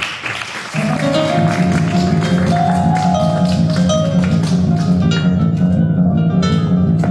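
Live instrumental music on what sounds like an acoustic guitar: fast, steadily pulsing strummed chords start about a second in and carry on unbroken.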